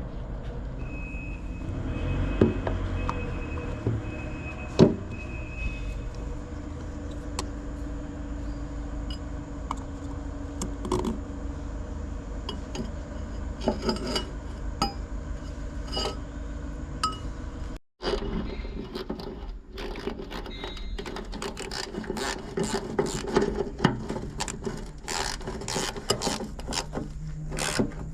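Scattered metallic clinks, taps and knocks of hand tools and metal parts being handled, coming thicker in the second half, over a steady low rumble.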